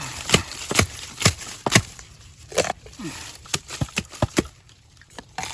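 A series of sharp knocks: four evenly spaced, about two a second, in the first two seconds, then several more at uneven intervals.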